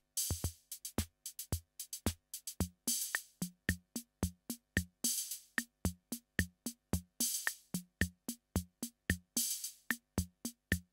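Closing music: a drum beat on its own, quick pitched drum hits with a cymbal crash about every two seconds.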